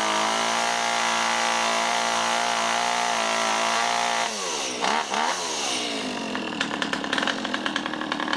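Two-stroke chainsaw running steadily at high revs. About four seconds in, the revs drop off with a blip or two, and the saw settles to a choppy, uneven idle.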